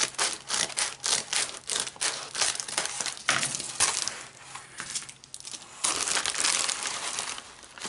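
Plastic bubble mailer (an Amazon Prime padded envelope) crinkling as it is cut with scissors and pulled open by hand: a run of quick sharp crackles, a brief lull about five seconds in, then a longer stretch of steady rustling.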